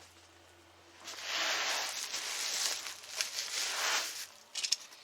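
Packing material rustling and crinkling as a parcel is unpacked by hand, starting about a second in, with a few sharp crackles near the end.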